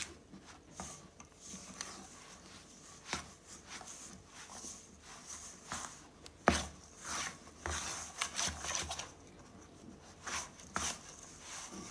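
A hand working wet, slightly overhydrated bread dough around a stainless steel bowl: irregular rubbing with soft knocks against the bowl, the sharpest about six and a half seconds in.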